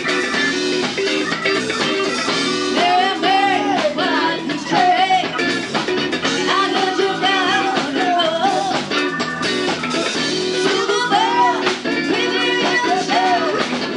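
Live rhythm-and-blues band playing: electric guitar, electric bass, drums and keyboards, with a woman singing lead from about three seconds in.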